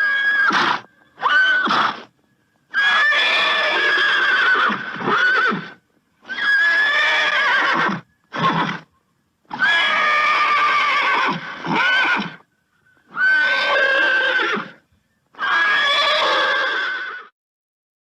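Horse neighing and whinnying, about eight separate calls, some short and some about three seconds long, each a wavering high-pitched call. The calls are separated by dead silence.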